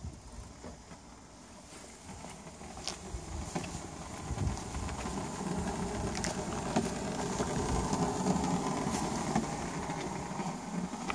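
Velobike Veleco Faster electric mobility scooter rolling slowly forward, its left rear wheel scraping because a broken chassis weld has left the wheel out of line. The noise grows louder over the first few seconds as the scooter gets moving, with a few sharp clicks.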